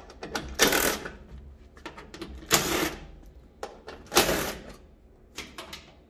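Cordless DeWalt driver running in three short bursts of about half a second each, backing out the screws on the back of a washer's control console. A few light clicks sound between the bursts.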